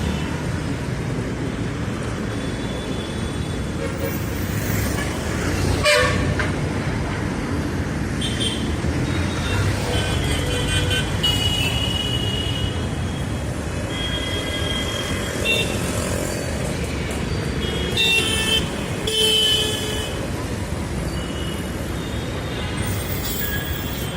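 Busy city street traffic: a steady rumble of engines and tyres, with car horns honking again and again in short toots. A brief sharp sound cuts through about six seconds in.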